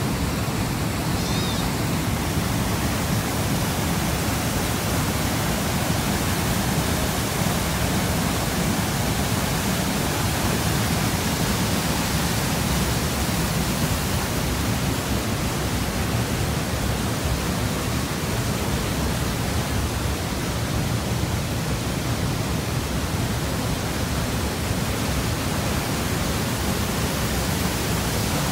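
Sheep River's waterfall and rapids rushing: a steady, even wash of water noise with no breaks.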